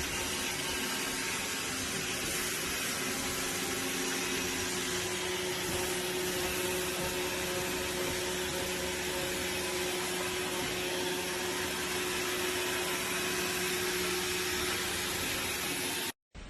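A steady, even rushing noise with a constant low hum, like a running motor and fan, unbroken until it cuts off abruptly near the end.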